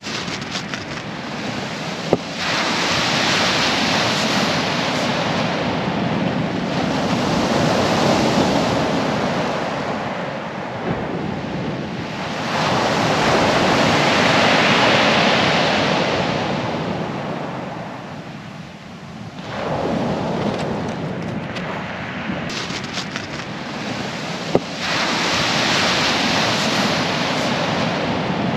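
Waves breaking on a shingle beach, the surf swelling and easing in slow surges every several seconds, with a couple of short sharp clicks.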